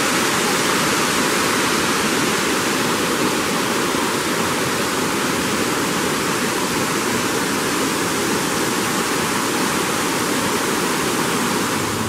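Water from a waterfall cascade rushing steadily over rocks: an even, unbroken rush.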